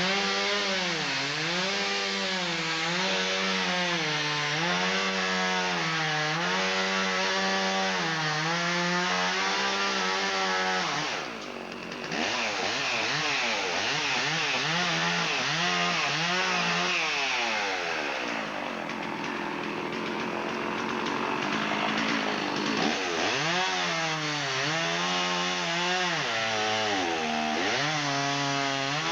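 Chainsaw cutting wood, its engine pitch dipping and recovering about every second and a half as it bites. It eases off briefly about eleven seconds in, runs less evenly for a while, then settles back into the same dipping rhythm near the end.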